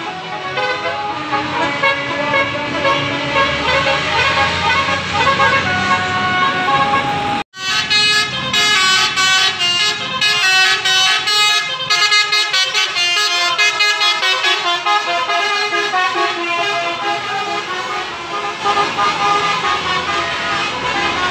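Basuri telolet horns, multi-note musical vehicle air horns, sounding several tunes over one another in steady, stepping tones. The sound cuts out sharply for an instant about seven seconds in, then carries on.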